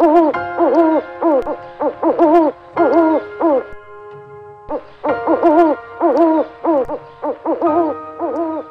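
Owl hooting: a rapid series of short hoots, about three a second, each rising and falling in pitch, in two bouts with a brief pause about four seconds in.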